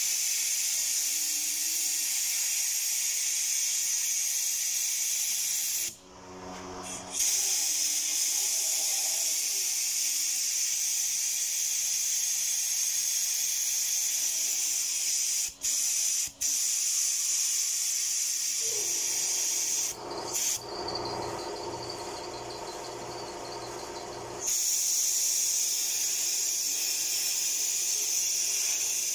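Compressed air blowing through a nozzle into an open engine coolant passage, a loud steady hiss as it forces coolant out of the block. The air stops briefly a few times, and for a few seconds past the middle the hiss turns lower and duller before coming back full.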